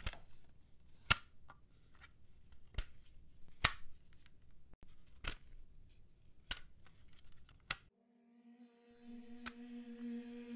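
Clear plastic piping bag filled with silicone whip crinkling and crackling as it is handled and squeezed, in about ten sharp, irregular crackles. Music fades in near the end.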